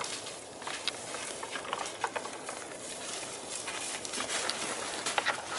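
Bull moose moving in dry brush and snow: irregular clicks and knocks over a steady outdoor hiss.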